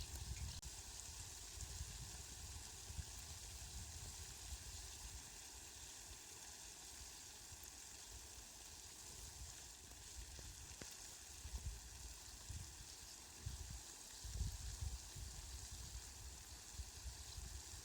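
Steady, faint hiss of falling rain, with irregular low rumbling near the start and again in the second half.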